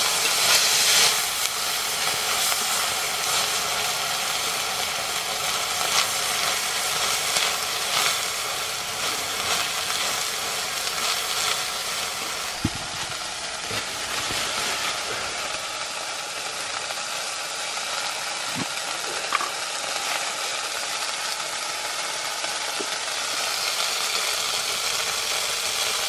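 Moths frying in oil in a pan over a wood fire, a steady sizzle throughout. Two sharp knocks sound, one about halfway through and one about two-thirds of the way in.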